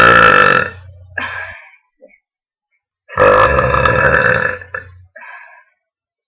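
A girl's deliberate, loud, piercing burps. One ends less than a second in, and a second starts about three seconds in and lasts nearly two seconds. Each is followed by a short, faint sound.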